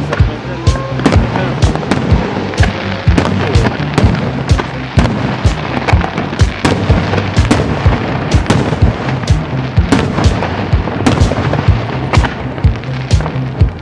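Aerial firework shells bursting in quick succession: two or three sharp bangs a second, with hardly a pause between them.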